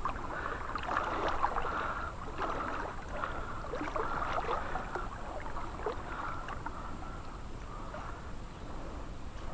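Creek water babbling and splashing: a steady rush with many small bubbling, gurgling splashes.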